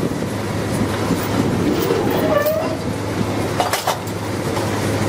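Drilling rig machinery running with a steady low hum and a mechanical clatter. A brief squeal comes a little before halfway, and a few sharp clanks come about three and a half seconds in.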